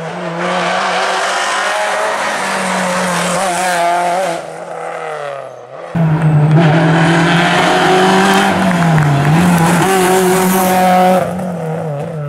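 Rally car engine held at high revs, its pitch wavering as the driver works the throttle, with possible tyre squeal. The sound cuts off abruptly about six seconds in and starts again at once, louder.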